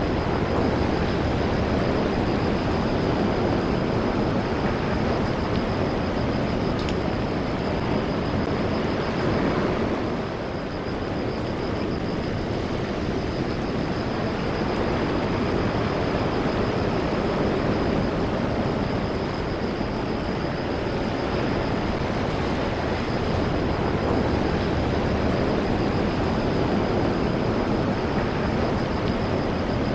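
Steady rushing of surf and wind at the seaside, with a thin high whine held steady throughout. The rush eases briefly about ten seconds in.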